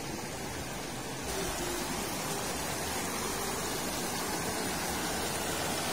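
River water rushing over rocks in shallow rapids, a steady hiss that gets a little louder about a second and a half in.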